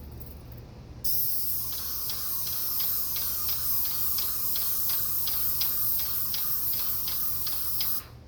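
Airless paint spray gun fed by a Graco 395 sprayer, triggered about a second in and spraying with a steady high hiss for about seven seconds before cutting off sharply. A regular ticking of about three a second runs under the hiss while it sprays.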